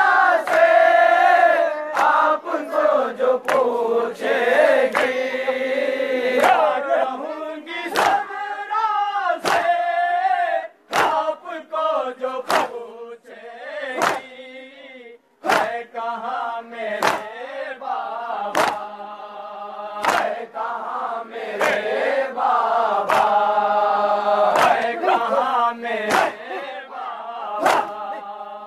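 Men chanting a farewell noha, a Shia mourning lament, in chorus into microphones, with sharp slaps at a steady beat of about one a second, the chest-beating (matam) that keeps time with the lament.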